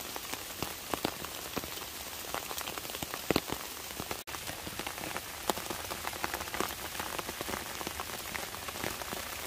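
Steady rain falling on wet leaves and the forest floor, with many single drops landing close by.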